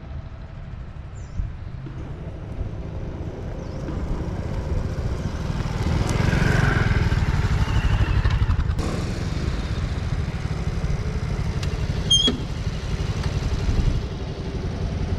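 A motor vehicle running on the road: a steady low engine and road rumble that grows louder over the first half, with a few brief clicks later on.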